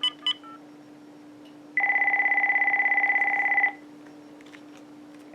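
A cordless phone's keypad beeps briefly at the start as the last digits of a call are dialed. About two seconds in comes a single ring of roughly two seconds: the called phone's electronic two-tone warbling ringer. A faint steady hum runs underneath.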